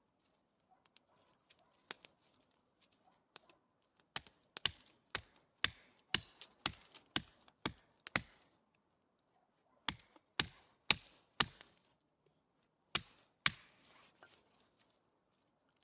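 A blade chopping into wood: a series of sharp strikes, about two a second, in three runs with short pauses between them, the second and third runs shorter.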